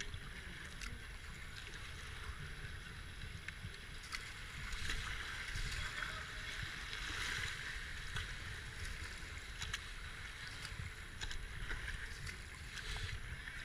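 Racing kayak paddled through a shallow rapid: water rushing and splashing around the hull, with short sharp splashes of paddle strokes. The rush of water grows louder about five seconds in as the boat enters the rough water.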